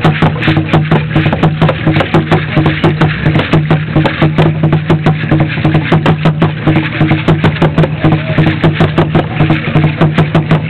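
Aztec dance drumming in a fast, even beat, with the dense rattling of the dancers' shakers over it.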